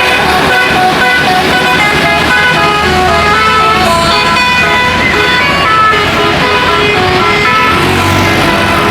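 A bus's multi-tone telolet air horn playing a quick tune of stepped notes over a low vehicle rumble, which grows stronger near the end.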